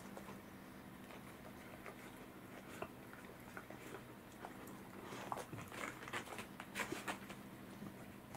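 A cat chewing and licking saury off a plate: irregular small wet clicks and smacks, busier about five to seven seconds in.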